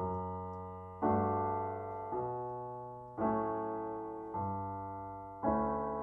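Digital piano playing a slow series of sustained chords, a new chord struck about once a second, each ringing and fading away before the next.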